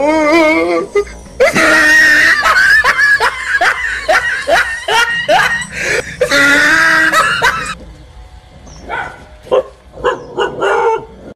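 Dogs barking and yelping in agitated, threatening bursts at a stuffed toy tiger pushed at them. The calls come thick and loud for the first seven seconds or so, then turn sparse and quieter.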